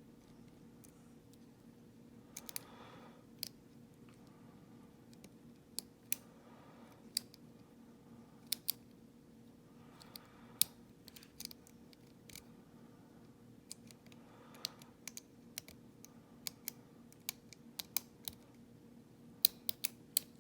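Lock pick and tension tool working inside a padlock core: irregular small metallic clicks and light scrapes, with a steady low hum underneath.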